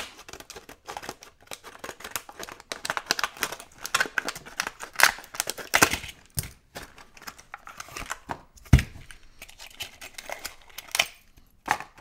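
Scissors snipping through a stiff plastic clamshell blister pack, the plastic crackling and crinkling as it is cut and pulled apart, with one sharp knock about two-thirds of the way through.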